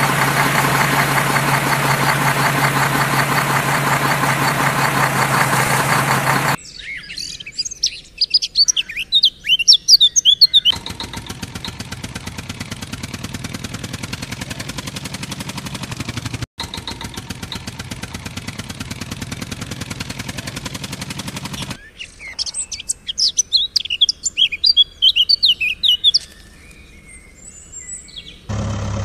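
A steady engine hum for the first six seconds, then birds chirping in quick high calls. A steadier, rougher engine-like rumble follows for about ten seconds, then more bird chirps, and the engine hum comes back right at the end.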